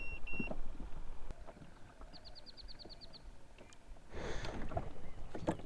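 Two short electronic beeps from a Garmin fish-finder as its buttons are pressed. About two seconds in comes a quick trill of about nine high chirps from a bird, and near the end a brief rustle with light knocks, the angler handling gear in the kayak.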